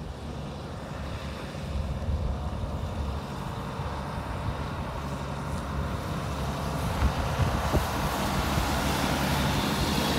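Heavy diesel water truck's engine running as it drives closer, with the hiss of its water spray growing louder as it passes near the end.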